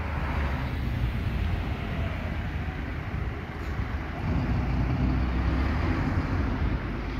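Road traffic passing close by: a bus at the start, then a car, with a steady low engine drone that grows louder about halfway through as the car goes past.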